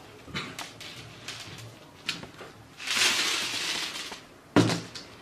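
Chocolate chips clicking as they are shaken from a small bowl onto bread dough and scatter across a wooden tabletop. About three seconds in comes a longer rattling pour, and near the end there is a single sharp knock.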